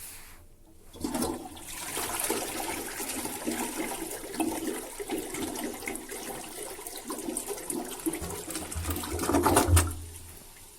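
Toilet flushing: rushing, gurgling water for about nine seconds, swelling near the end before it tails off.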